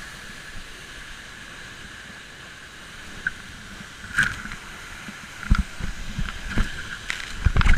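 Steady rush of a tall waterfall, with a few sharp knocks and louder stretches in the second half.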